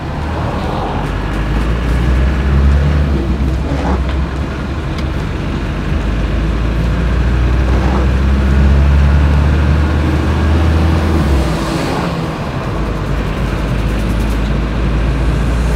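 Cabin noise inside a classic Land Rover Defender 110 turbo diesel cruising at about 55 mph: a deep, steady engine drone under road and wind noise. It reads roughly 72–77 dB on a phone sound meter.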